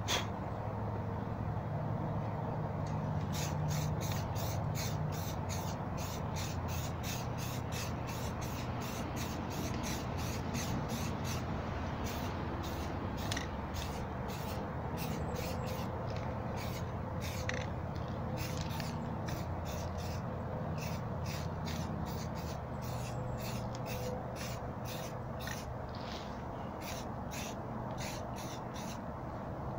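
Aerosol spray paint can sprayed in many short hissing bursts, a couple a second, over a steady low background rumble.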